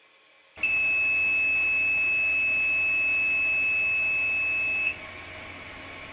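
Artillery Sidewinder X2 3D printer's alarm buzzer sounding one loud, steady, high-pitched beep for about four seconds, then cutting off suddenly, leaving the steady hum of the printer's fans. The alarm signals that the print has paused.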